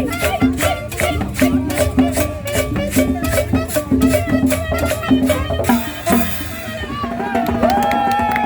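Tropical dance music with a quick, even shaker-and-percussion beat. The beat stops about six seconds in, followed by a brief hiss and a long drawn-out voice sliding in pitch.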